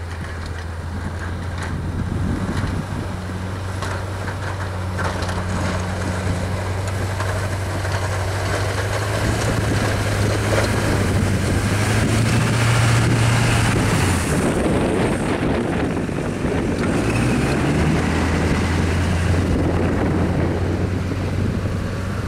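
Duramax 6.6 L LB7 diesel engine of a Chevrolet Silverado dually working under load while pushing snow with a V-plow: a steady low drone with a rushing noise of snow and wind over it. It grows loudest a little past halfway as the truck comes close, and the engine note rises briefly twice as the driver gives it more throttle.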